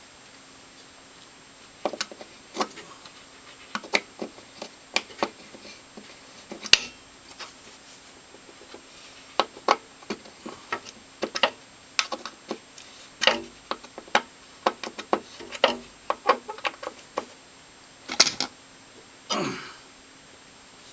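Irregular clicks and knocks of hands and tools working on a DeWalt 7491 table saw's metal parts while the blade alignment is adjusted by eye, with a short scrape near the end.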